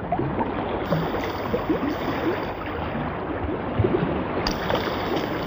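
Steady wash of moving water.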